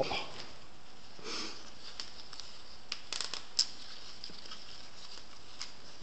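Hands weaving a satin ribbon into a hair plait: soft rustles and a few small clicks over a steady hiss, the sharpest click about three and a half seconds in.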